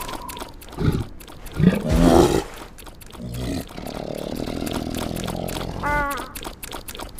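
Cartoon animal vocal sounds: a couple of short grunts, then a long rough, low drawn-out growl of about two and a half seconds, with a brief high squeak about six seconds in.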